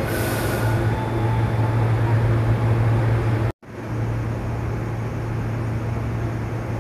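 A JR East E353 series electric train standing at the platform, its onboard equipment giving off a steady low electrical hum. A short high hiss sounds at the start, and the sound drops out for an instant a little past halfway.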